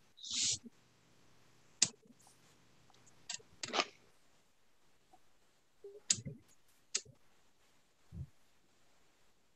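Scattered sharp clicks, a couple of short rustles and a soft low thump near the end: small handling noises at a desk, picked up by a computer microphone.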